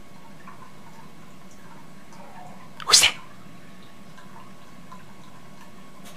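Long-haired chihuahua sneezing once, a short sharp burst about three seconds in.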